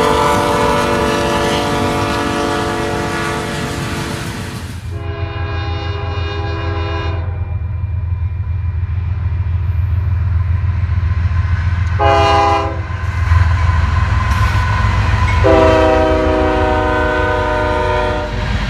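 Nathan K5HL five-chime locomotive air horns sounding a chord: one blast ends about five seconds in. Then, over the low rumble of a passing diesel locomotive, come a blast of about two seconds, a short toot and a longer blast near the end, the long–short–long that closes a grade-crossing signal.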